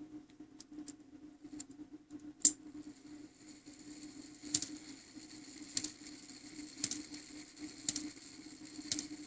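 A French round clock movement striking the hour: its hammer hits the bell about six times, roughly a second apart, and each stroke leaves a high ringing tone. The strike runs on past the expected count, which the repairer takes for something going wrong.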